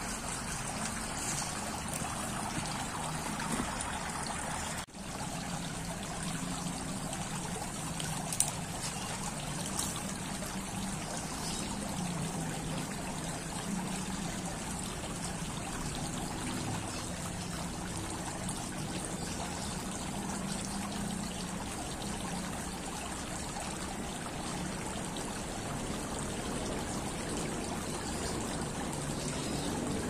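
Tiered garden fountain with shell-shaped basins: water trickling and splashing steadily down the tiers.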